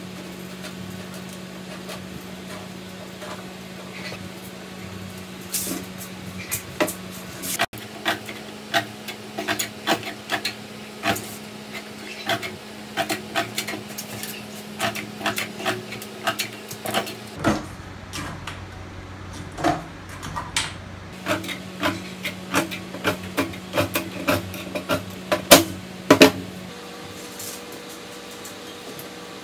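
Long-handled tin snips cutting thin stainless steel sheet: a sharp metallic snip each time the blades close, irregular, about one to two a second, starting about five seconds in and stopping a few seconds before the end.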